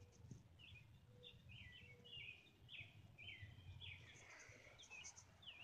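Faint bird chirping: a steady series of short, repeated chirps, about two a second, over low outdoor background noise.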